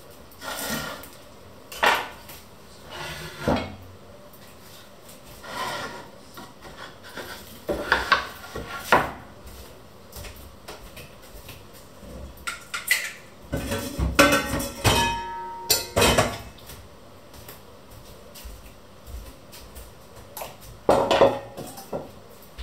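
Kitchen clatter on a wooden table: a knife, wooden cutting boards and a pot being handled and set down, heard as separate knocks and clinks. Partway through comes a dense run of clatter with a short metallic ring, and there is another loud clatter near the end.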